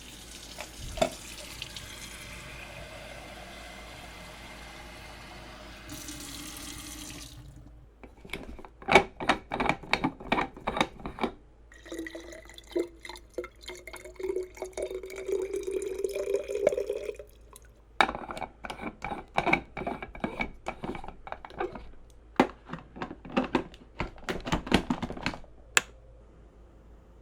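Espresso machine at work: a steady rushing hiss for the first eight seconds, then a burst of rapid clicks and knocks. About twelve seconds in comes a hiss carrying a slowly rising tone that lasts about five seconds, followed by more clattering knocks.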